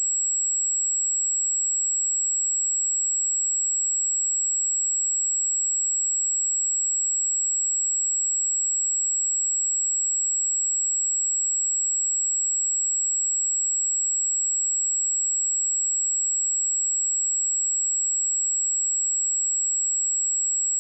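A pure 7695 Hz sine-wave test tone, one steady high-pitched whistle that does not change in pitch or loudness.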